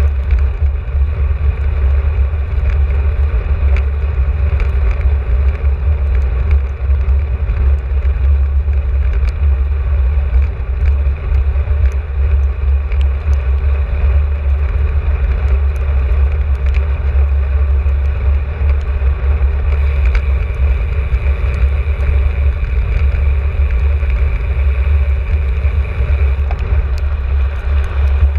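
Loud, steady wind rumble on the microphone of a camera riding along on a moving bicycle, with small ticks and knocks from the ride. A brighter hiss joins for several seconds about two-thirds of the way through.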